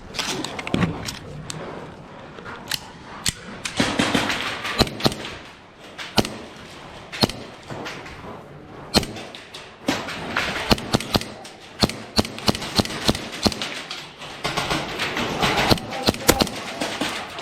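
Airsoft gunfire in close-quarters play: many sharp shots, some single and some in quick strings, coming irregularly throughout, over a noisy background of movement.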